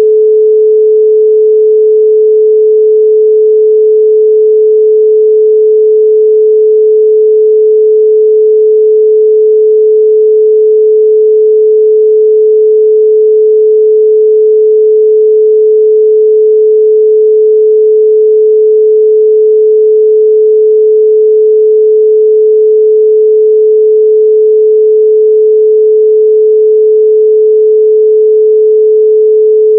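A loud, steady 432 Hz pure sine tone, held at one pitch without change.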